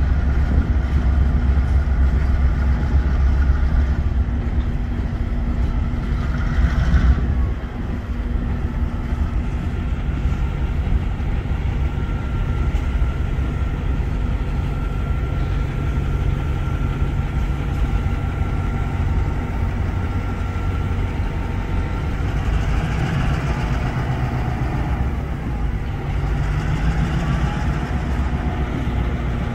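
An EMD GP9 diesel-electric locomotive's V16 two-stroke diesel engine running with a deep, steady rumble as the locomotive switches hopper cars. A thin steady whine sounds for several seconds midway.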